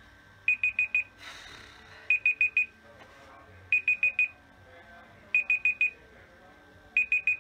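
Digital alarm beeping: bursts of four quick high-pitched beeps, repeated about every second and a half, five bursts in all.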